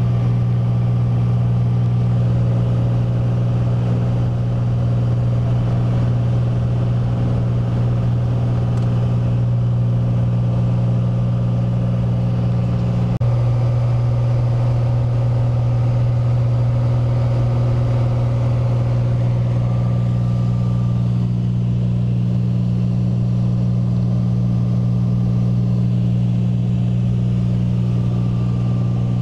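Light aircraft's engine and propeller droning steadily in cruise flight, heard inside the cabin as a constant low hum.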